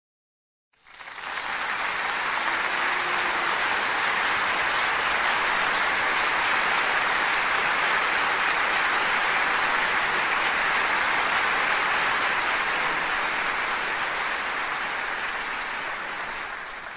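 Concert audience applauding steadily. The applause comes in about a second in and eases a little near the end.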